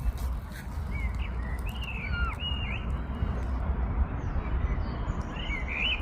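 An animal giving short, high chirping calls that bend up and down in pitch: several in the second and third seconds and a quick cluster near the end. Under them runs a steady low rumble of wind on the microphone.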